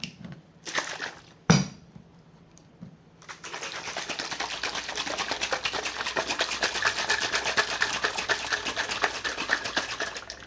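A sealed cup of mashed banana, yogurt and oats being shaken by hand to mix a smoothie: a couple of knocks, one sharp, then a long run of fast, rhythmic shaking strokes that stops near the end.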